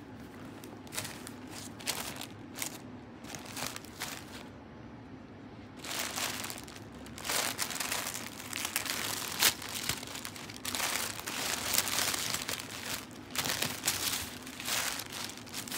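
Crumpled white paper stuffing being pulled out of a new handbag and handled, crinkling. Scattered short crinkles at first, then steadier, louder crinkling from about six seconds in.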